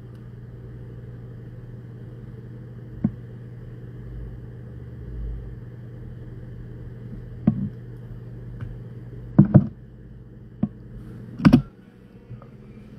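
A steady low hum under a few short knocks and clicks from a ceramic mug being drunk from and handled, the loudest knock near the end.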